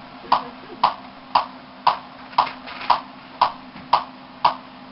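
Steady ticking, sharp clicks at about two a second, nine in all, over a faint steady hum: the sketch's mysterious ticking noise.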